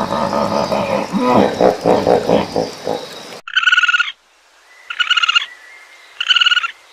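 Hippopotamus grunting and honking with a deep, wavering pitch, cut off abruptly about halfway through. A different animal's short, high, buzzy call then repeats three times about a second and a half apart.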